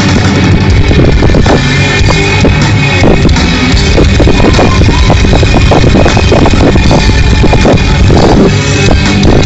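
Loud live heavy metal band playing: electric guitars over a drum kit, with the drums hitting densely throughout.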